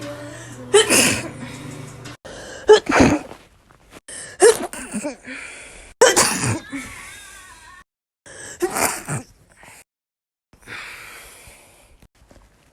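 A person sneezing, about five loud sneezes a second or two apart, some followed by a breathy hiss, with abrupt silent cuts between some of them.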